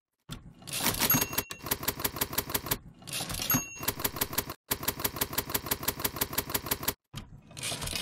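Manual typewriter typing: rapid runs of keystrokes, about eight a second. Three times the runs are broken by a carriage return with a ringing bell.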